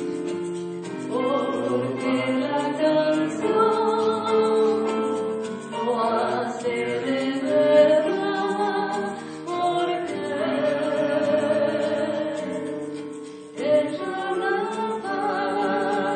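Group of voices singing a song in Spanish, in phrases separated by short pauses, with a brief louder accent about thirteen and a half seconds in.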